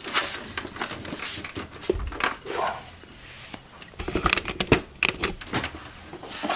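Plastic clicks, knocks and rubbing as a desktop computer's front faceplate is handled and pressed onto the case, with a dense run of sharp clicks in the last couple of seconds as it snaps in.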